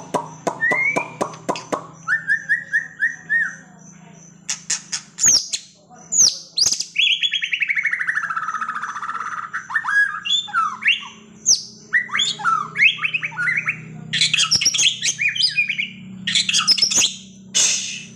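White-rumped shama (murai batu) singing a loud, varied song: sharp clicks and quick chattering phrases, a long whistle falling in pitch around the middle, and dense rapid trills near the end. A faint steady low hum sits underneath.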